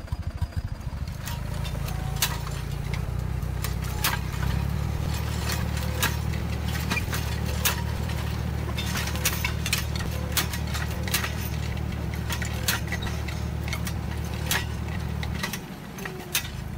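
Tractor diesel engine running steadily while pulling a sensor-arm in-row orchard hoe through the soil, with frequent sharp clicks and knocks from the working implement. The engine's low hum drops away near the end.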